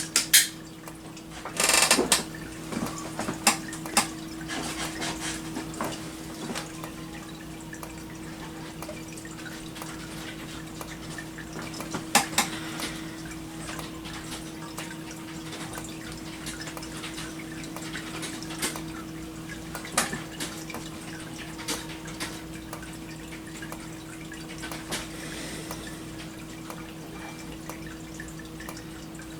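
A steady low electrical hum with scattered sharp clicks and taps at irregular intervals, and a few louder knocks in the first couple of seconds.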